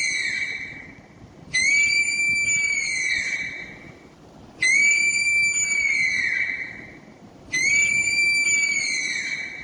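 Sloth call: a high, whistling cry repeated about every three seconds. Each cry is held steady for about two seconds, then drops in pitch as it fades.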